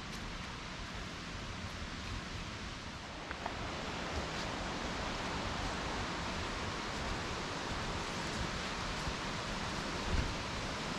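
Steady rushing outdoor noise on a forest trail, a little louder from about three and a half seconds in, with an uneven low rumble underneath.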